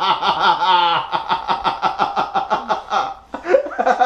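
A person laughing hard in quick, even pulses of "ha-ha-ha", which break off briefly about three seconds in and then start again.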